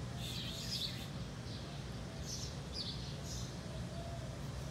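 Small birds chirping, short high chirps coming every second or so, over a steady low hum.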